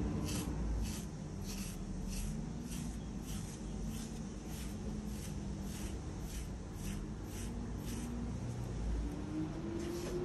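Fine carding knife drawn through a cocker spaniel's coat, which is growing back after being shaved, in short, even strokes, about two a second.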